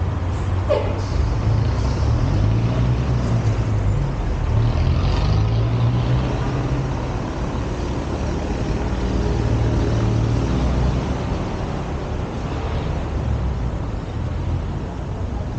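Street traffic: motor vehicle engines running close by. The low engine rumble is loudest for the first several seconds, then eases.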